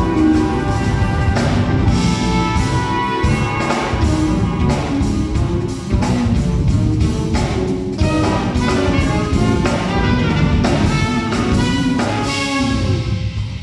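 Live jazz-fusion quartet playing: trumpet lines over electric bass, keyboards and a busy drum kit, heard from the audience in a theatre.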